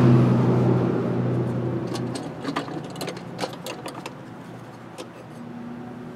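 A low steady hum fades away over the first two seconds. Scattered light clicks and rattles of the air filter housing and vacuum hoses being handled follow, while a fainter hum comes back near the end.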